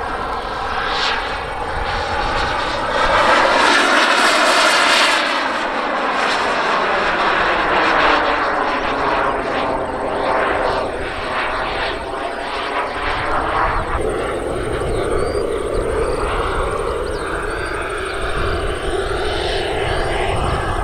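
Gas-turbine engine of a large radio-controlled model Su-30MK jet in flight: a continuous jet whine and rush that swells and fades, with slow sweeping shifts in pitch as the plane passes and turns overhead, loudest a few seconds in.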